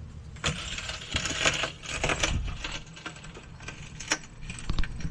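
Metallic clinking and clattering: a dense run of clicks and rattles in the first half, then scattered single clicks.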